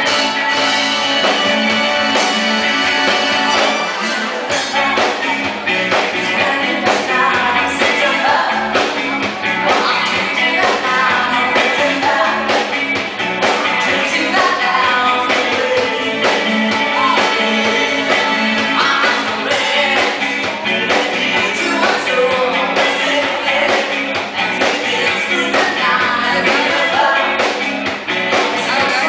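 Live band playing a rock song: a man singing into a microphone over electric guitar, a drum kit and timbales.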